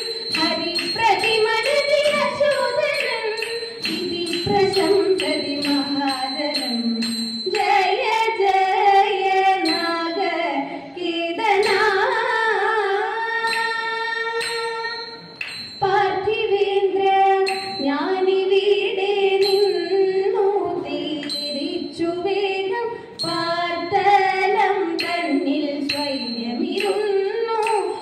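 Women singing a Thiruvathira song in Carnatic style, with a steady beat of sharp hand claps through the first part and again near the end.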